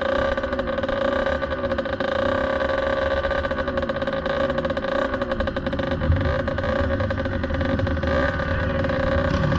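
Kawasaki KX65 two-stroke dirt bike engine idling steadily. A second dirt bike's engine comes close and grows louder from about six seconds in.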